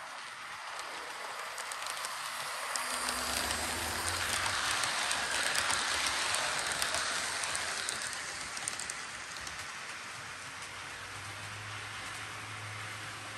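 HO scale Electrotren S-114 model train running past on the track: its rolling noise swells as it comes close, is loudest about five to seven seconds in, then fades as it moves away, with light clicks along the way.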